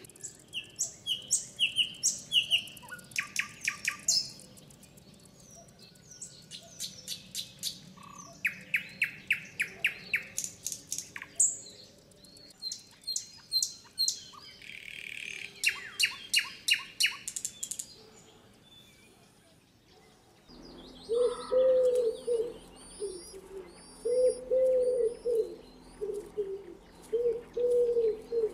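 Songbirds singing, with rapid repeated trills and chirps overlapping one another. About two thirds of the way in the background changes abruptly, and a lower call repeated in short phrases joins the high chirps.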